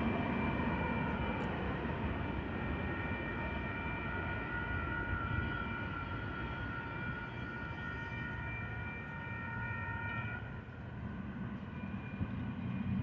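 Union Pacific freight train rumbling past and away, with a railroad crossing bell ringing over it. The bell stops about ten seconds in, as the crossing clears and road traffic starts to cross.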